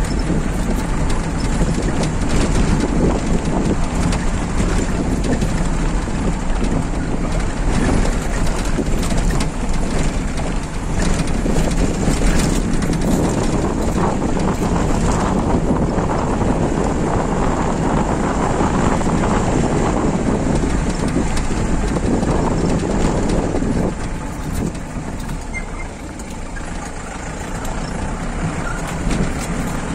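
A motor vehicle driving on a rough gravel road: the engine runs under a steady din of tyre noise, with many knocks and rattles from the bumpy surface. The noise eases for a few seconds near the end.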